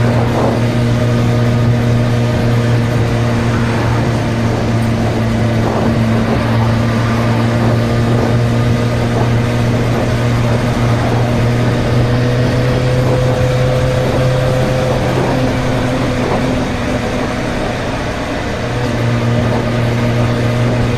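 Suzuki GSR 600's inline-four engine running at a steady pace. Its note eases off briefly about three quarters of the way through, then picks up again.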